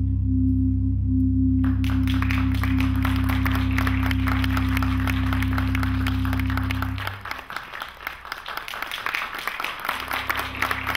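A steady electronic drone of several low held tones, which stops about seven seconds in. Audience applause starts suddenly about two seconds in, under the drone, and carries on after the drone has stopped.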